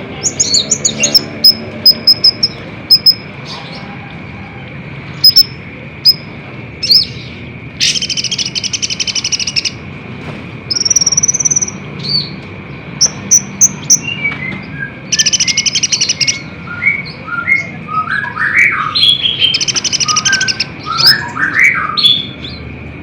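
Olive-backed sunbird (kolibri ninja) singing a fast, busy song of thin, high chirps and sharp whistled notes. Three bursts of rapid buzzy trill come about 8, 15 and 19 seconds in, and quick lower chirps fill the second half. A steady high tone runs underneath.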